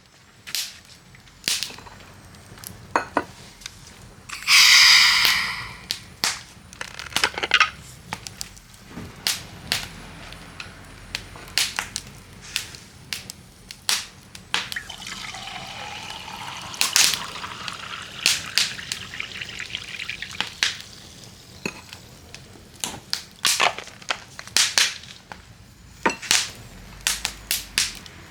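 Wood fire crackling, with irregular sharp pops and snaps throughout. About four seconds in comes a louder hiss lasting a second or so.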